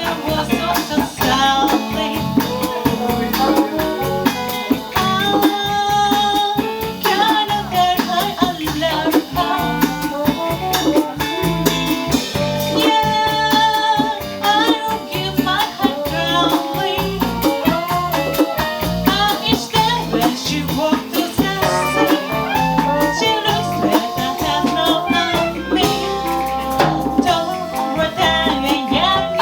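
Live Dixieland jazz band playing, a melody line over plucked strings and a steady pulsing beat.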